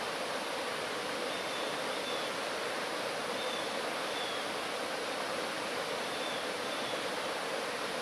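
Rocky mountain stream running steadily over small rapids and boulders: an unbroken rush of water.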